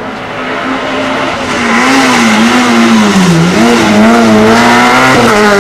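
Hillclimb race car engine at high revs, growing louder over the first two seconds as it approaches, its pitch wavering with the throttle and dropping briefly about three and a half seconds in before climbing again.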